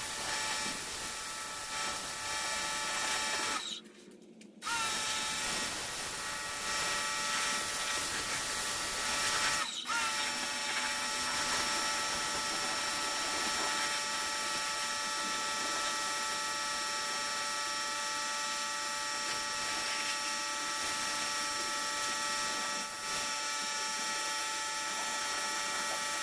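An electric motor running steadily with a high whine, cut off for about a second near the start and broken briefly again a few seconds later.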